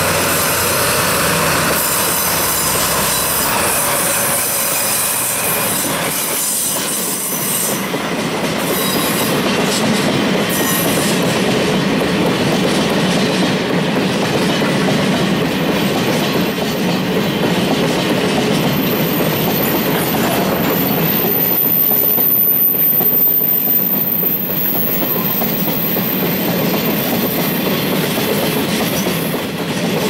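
A DD51 diesel-hydraulic freight locomotive pulling away past at close range, its twin diesel engines working as it departs, followed by a long string of empty cement tank wagons rolling steadily by on the rails. A thin high squeal from the wheels runs through the middle stretch.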